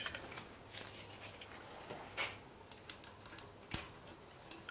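Faint, irregular small metallic clicks and taps as parts and tools are handled on an engine cylinder head, with one sharper click about three and a half seconds in.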